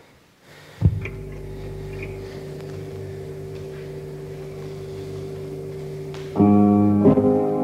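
Piano music: a low chord struck about a second in and left ringing, then from about six seconds in, louder rhythmic chords as the ballet class accompaniment gets under way.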